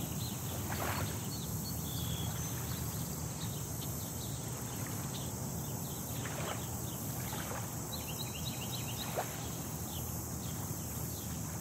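Small lake waves lapping and washing against the boulders of a stone breakwater, a steady outdoor wash with a low rumble underneath and a few faint short chirps.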